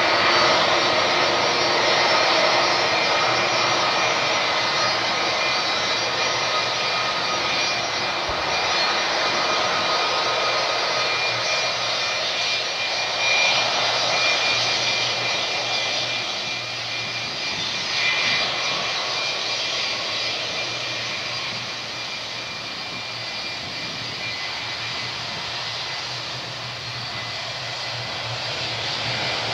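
Airbus A320's IAE V2527 turbofan engines at taxi power as the airliner taxis past: a steady jet rush with a high whine, somewhat quieter in the last third.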